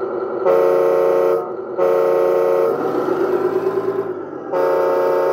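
Electronic sound kit of a 1/14 Tamiya Grand Hauler RC semi truck sounding its simulated air horn three times, each blast about a second long. Between the blasts runs the kit's diesel engine sound, which rises in pitch between the second and third blasts.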